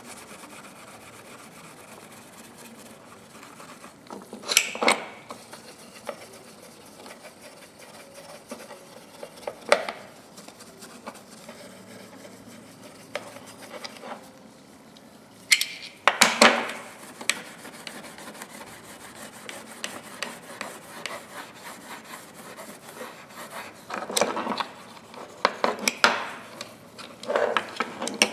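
Steel wool rubbing over the blued steel of a pair of locking pliers: a faint, steady scratchy rubbing, broken by a few short, louder knocks and clatters as the pliers are handled, several of them near the end.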